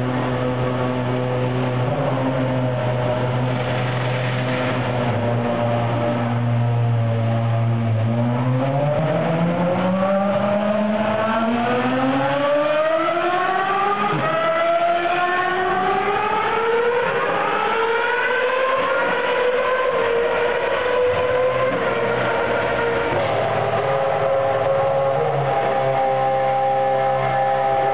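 Formula One car's 2.4-litre V8 engine running in the pit garage. It holds a steady pitch at first, then about eight seconds in climbs slowly and smoothly for about twelve seconds, and holds steady again at the higher pitch.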